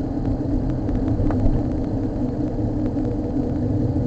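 Steady rumble of a car's engine and tyres heard inside the cabin while driving.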